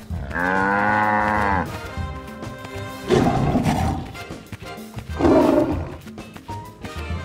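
Cartoon animal sound effects over background music: a long cow moo, then two big-cat roars about two seconds apart.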